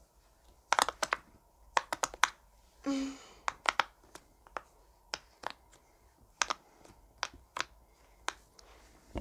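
Silicone pop-it fidget toy being worked by hand, its bubbles popping in sharp, irregular clicks, one or two a second.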